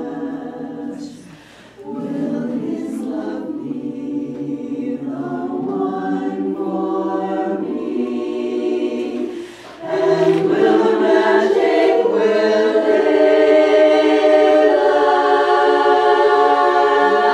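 Women's chorus singing a cappella in close harmony, on long held chords. The sound drops out briefly twice, about a second and a half in and just before ten seconds, and is louder and fuller after the second break.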